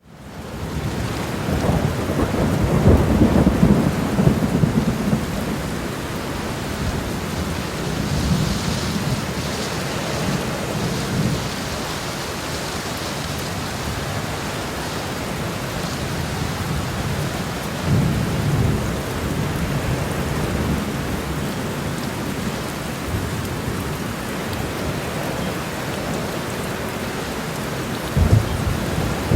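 Very heavy rain pouring onto a road: a dense, steady hiss that fades in over the first second, with deeper low rumbling swells a few times as the downpour surges.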